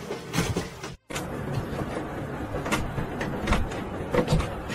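A running printer under a cat, then after a cut about a second in, a wooden wardrobe door knocking and rattling irregularly as a cat pushes against it.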